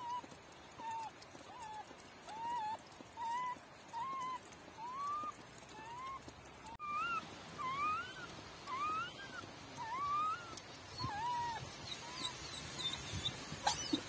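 Newborn puppy whimpering: a steady series of short, high cries, about one and a half a second, many rising or arching in pitch, fading out near the end.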